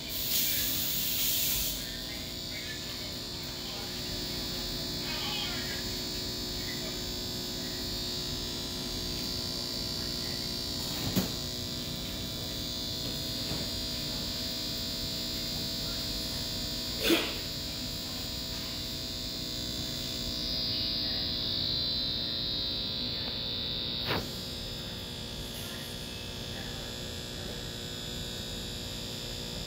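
Steady hum and hiss of running aquarium equipment. There is a short louder rush at the start and three sharp clicks spread through.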